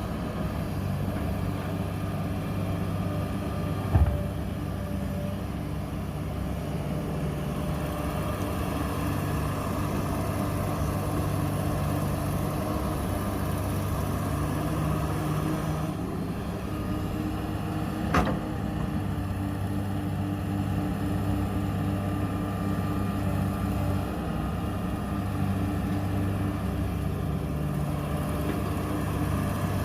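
Heavy diesel engine of a Komatsu excavator running steadily, its low pitch wavering slightly, with two sharp knocks, one about four seconds in and another about eighteen seconds in.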